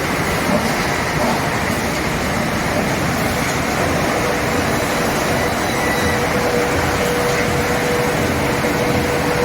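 Spindleless veneer peeling lathe running with a loud, steady mechanical din. A steady hum joins in about four seconds in.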